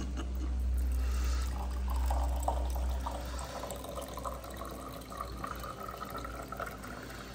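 Liquor being poured into a cup, a steady run of liquid filling it, with a low hum underneath for about the first three seconds.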